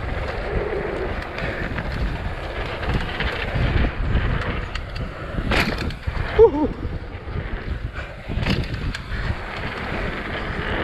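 Mountain bike descending a dirt downhill trail: steady wind buffeting on the microphone over tyre and trail noise, with knocks and rattles from the bike over the bumps. A brief voice sounds about six and a half seconds in.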